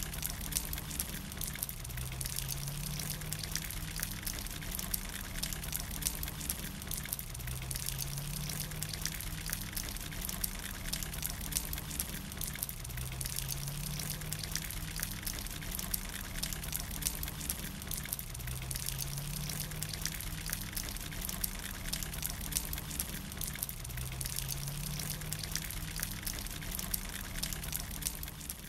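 Steady rain pattering and dripping, with many small sharp drop impacts. Beneath it a low hum rises slightly in pitch and swells about every five to six seconds.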